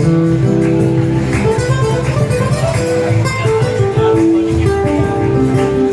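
Background music led by a plucked acoustic guitar, with steady held notes underneath.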